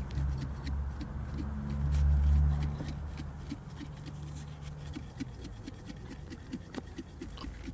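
A jar of honeybees and icing sugar being shaken by hand for a sugar-shake Varroa mite test, giving a steady rhythmic rattle of about four shakes a second. A low rumble sits under it for the first three seconds.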